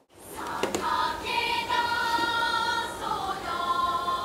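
A choir of high voices singing a slow melody in long held notes, used as background music. It rises out of a brief silence in the first half-second.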